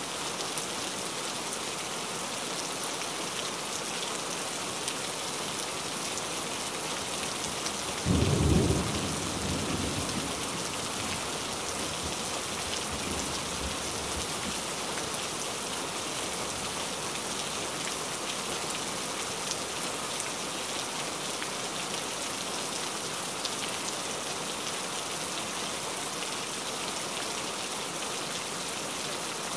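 Steady rain falling, with a sudden clap of thunder about eight seconds in that rumbles away over the next few seconds.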